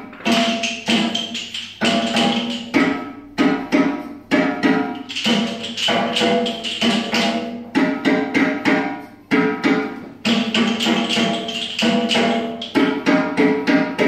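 Children's rhythm-exercise music with a regular wood-block and percussion beat over a pitched melody, dipping briefly about two-thirds of the way through.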